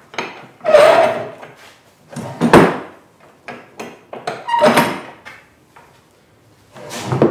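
Pipe-clamp vise on a plywood workbench, its 1/2-inch pipes and wooden jaw being slid in and out to adjust it. There are four separate sliding clunks, the loudest about two and a half seconds in.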